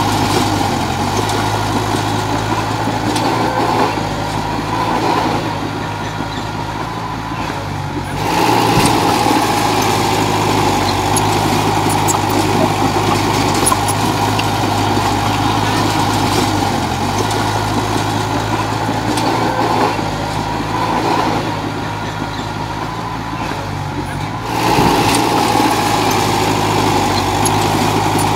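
Komatsu D31J bulldozer's diesel engine running steadily, with scattered small metallic clanks. Twice the engine eases off for a few seconds, then comes back up sharply, about eight seconds in and again near the end.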